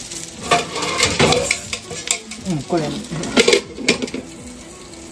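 Floured fish sizzling in a frying pan, with a cooking utensil clinking and scraping against the pan several times.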